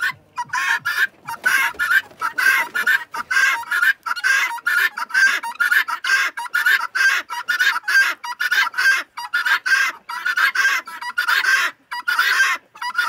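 Helmeted guinea fowl calling in a rapid, unbroken chatter of short rough calls, about four a second, pausing briefly a couple of times.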